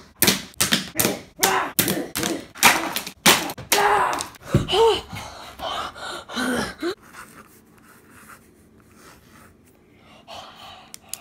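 A ballpoint pen being banged against a hard floor: a rapid run of sharp knocks about three a second. About four seconds in they give way to a person's strained groans and gasps, then quieter scratchy sounds.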